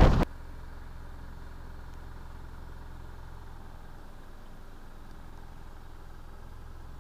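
Wind buffeting the microphone stops abruptly just after the start, leaving a faint, steady low rumble of outdoor background noise.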